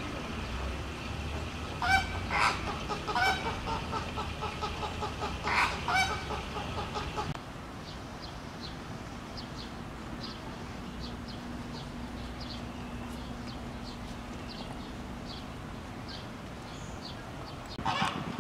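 A run of loud honking animal calls over about five seconds, then faint high bird chirps.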